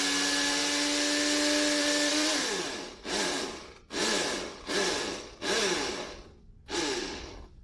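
Loud electric blender chopping peppers in a little vinegar: one continuous run that winds down about two and a half seconds in, then five short pulses, each a quick whir that spins up and dies away.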